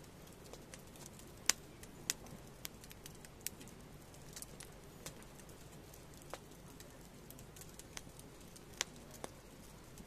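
Firewood burning in a metal fire pit, crackling with irregular sharp pops; the loudest pop comes about one and a half seconds in, with further strong ones about two seconds in and near the end.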